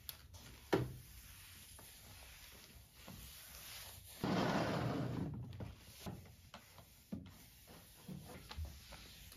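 Flat mop with a cloth pad sliding and rubbing over a laminate floor: a sharp knock just under a second in, a longer, louder swish near the middle, and light taps and scrapes throughout.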